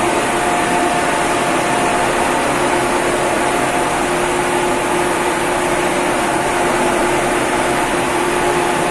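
Steady, loud engine-room machinery noise in a ship's engine room: an even drone with a faint, constant whine in it and no change throughout.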